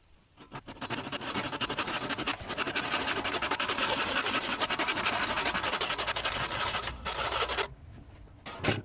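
Hand saw cutting through a wooden handle with rapid back-and-forth strokes. The sawing stops about a second before the end, followed by a single sharp knock.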